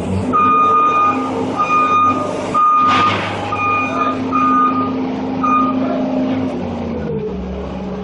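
Skid steer's backup alarm beeping six times, about once a second, over its engine running; the beeping stops about six seconds in.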